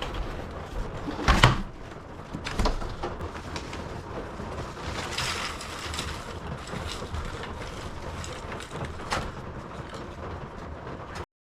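A few sharp knocks or thumps over a steady hiss, the loudest about a second and a half in, another soon after and one more near the end; the sound cuts off abruptly just before the end.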